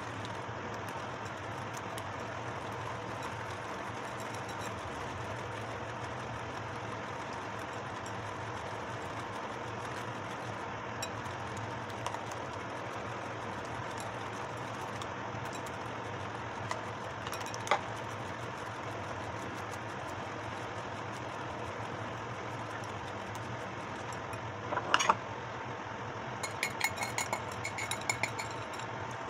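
Wire whisk beating a liquid egg batter in a ceramic bowl, over a steady mechanical hum like a motor or fan. A few sharp clinks come near the end.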